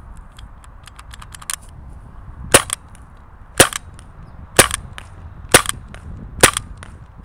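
First Strike Tiberius Arms T9.1 CO2 paintball gun firing semi-auto: five sharp shots about a second apart, starting about two and a half seconds in, each followed closely by a softer click. A few faint clicks come before the first shot.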